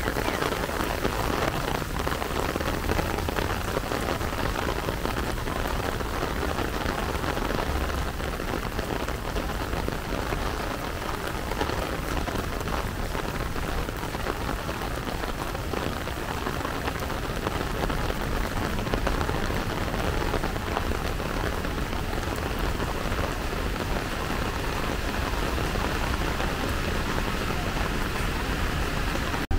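Steady rain falling, an even hiss of drops that keeps up without a break.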